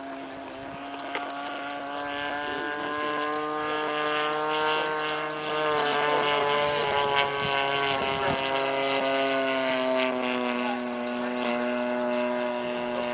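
The 30cc single-cylinder two-stroke gas engine and propeller of a radio-controlled Extra 260 model plane in flight, running steadily with a droning engine note. It grows louder over the first half as the plane comes closer, and its pitch shifts slightly as it flies.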